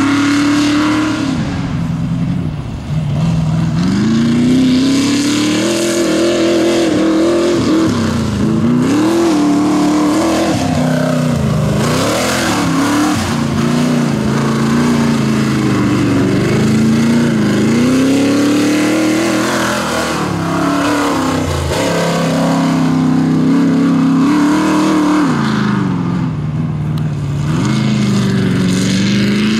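Off-road race vehicle's engine revving hard, its pitch rising and falling over and over as the throttle is worked, with short drops to low revs several times.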